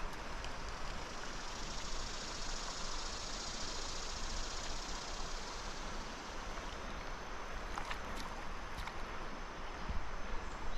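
Creek water running, a steady even hiss with no break.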